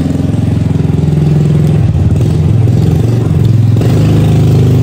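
A motor vehicle's engine running steadily close by, loud and low-pitched, shifting slightly in pitch about four seconds in.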